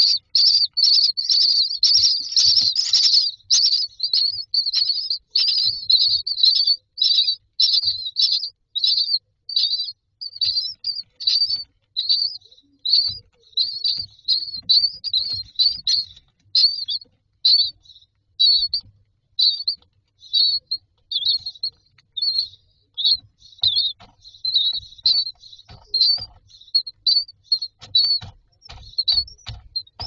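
Common myna nestlings begging for food, a chorus of short high-pitched chirps. They come thick and fast for the first few seconds, then settle into a steady run of about two chirps a second.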